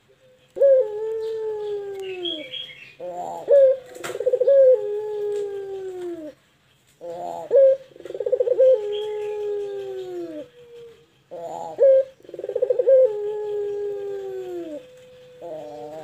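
Ringneck dove (puter) singing its long 'pelung' coo: four phrases, the first a single drawn-out coo falling in pitch, the next three each opening with a quick rolling, pulsing coo and ending in a long falling coo.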